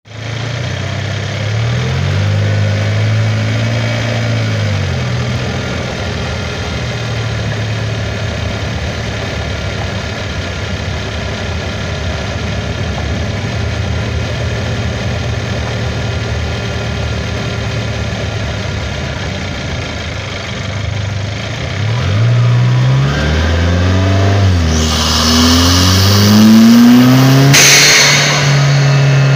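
Kia Sorento's turbocharged engine, heard from a microphone in the engine bay, running as the car pulls away and cruises, with the revs climbing in the last few seconds. A loud hiss of rushing air sets in as the turbo works, and a sharp burst of air near the end is the turbo's blow-off valve venting.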